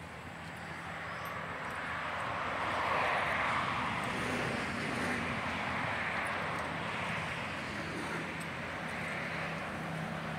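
Passing vehicle noise: a rushing sound that builds over about three seconds, then slowly fades.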